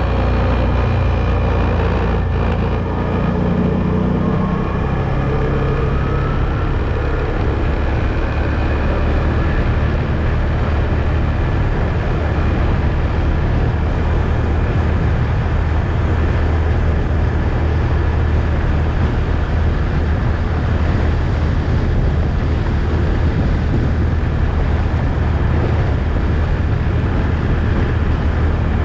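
ATV engine running steadily while driving, its pitch shifting during the first few seconds and then holding even.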